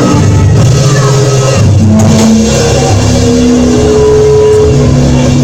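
Live church band music: long held chords over a heavy bass line, played under a pause in a shouted sermon.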